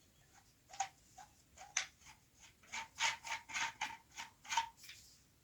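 A string of about a dozen irregular sharp clicks and taps, bunched together near the end, from handling a Bosch GWS 600 angle grinder with its motor off.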